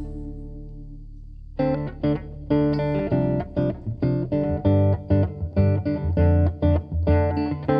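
Jazz played on a hollow-body archtop electric guitar: a held chord fades away, then about a second and a half in a run of plucked single notes and chords starts, with electric bass playing low notes underneath.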